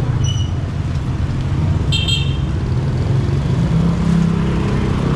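Street traffic: a vehicle engine runs steadily with a low hum, and a short high horn beep sounds about two seconds in.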